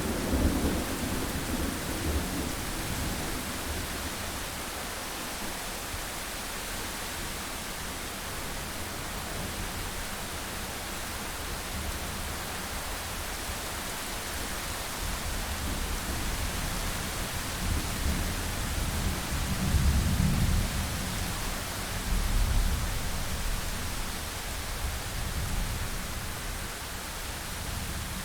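Thunderstorm: steady heavy rain hiss with rolls of low thunder rumbling at the start and again about two-thirds of the way through.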